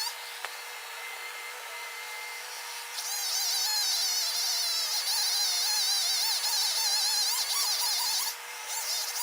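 Chainsaw running, quieter at first and then revving up about three seconds in with a wavering high-pitched whine, as when cutting. It drops back briefly near the end and then picks up again.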